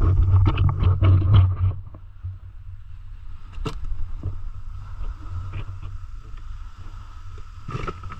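Knocks and clicks inside a small boat over a steady low rumble and a thin steady hum: a busy cluster in the first two seconds, then scattered single knocks, a sharp one about three and a half seconds in and another near the end.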